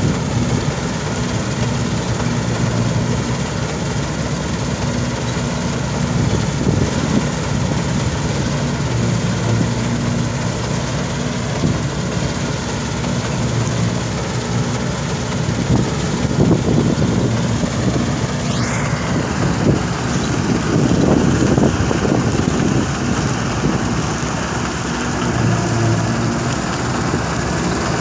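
1976 New Holland 1530 combine harvester running while cutting standing grain: a steady engine drone under the continuous rushing noise of the header and threshing machinery.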